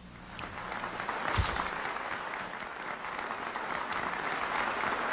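Audience applauding in a large hall, building up within about half a second and then holding steady, with a single knock about a second and a half in.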